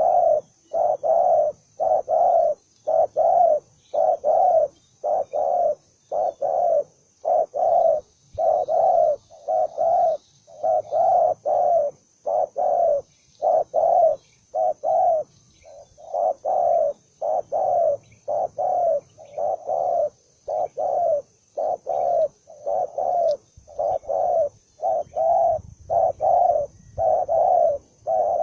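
Spotted dove cooing over and over in a steady rhythm, one to two deep coos a second with brief pauses: the rapid, challenging cooing of a newly caught bird described as aggressive.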